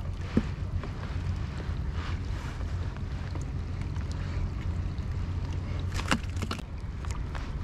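Wind buffeting the camera microphone as a steady low rumble, with a few light handling clicks and one sharp click about six seconds in.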